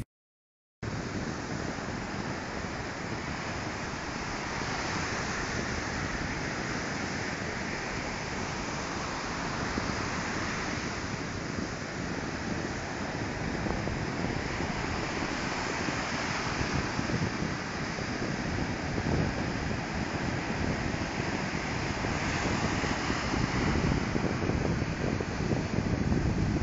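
Sea surf breaking and washing up onto a sandy beach, a continuous rushing wash that starts about a second in and swells louder near the end.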